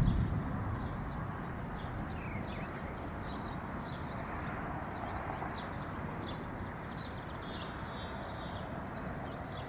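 Outdoor wetland ambience: a steady low rumble and hiss, with short high chirps repeating every half second or so. A low thump sounds right at the start.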